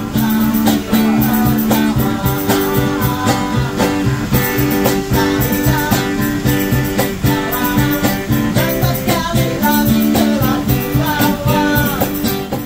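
Live acoustic guitar strumming with a man singing into a microphone, over a steady cajón beat.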